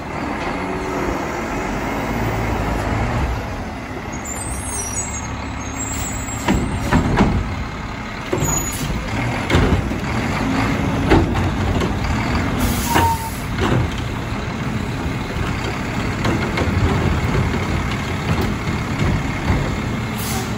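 Front-loader garbage truck with a Curotto Can arm, its diesel engine running and revving while the hydraulic arm works, with several metal clanks from the cart and can between about six and fourteen seconds in and air brake hisses.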